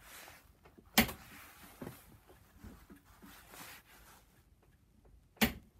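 Two sharp clicks, about a second in and again near the end, from a click-type torque wrench clamped in a vise as its release mechanism breaks over under load, with clothing rustling close by between them.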